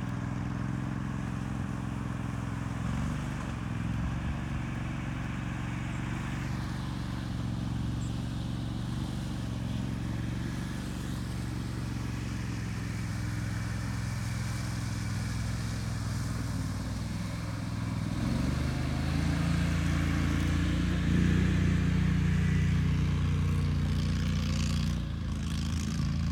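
Argo 8x8 700HD amphibious ATV's engine running steadily while the vehicle moves through water and out onto land. From about two-thirds of the way in the engine gets louder and its pitch rises as it drives off across the grass.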